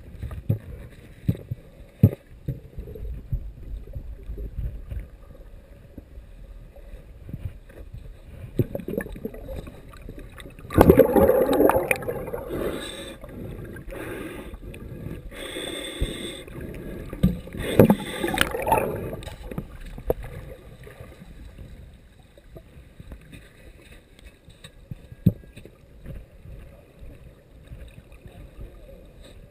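Underwater sound through a submerged camera: a low, muffled water rumble with scattered knocks, and a louder, noisier rushing stretch from about eleven seconds in to about nineteen.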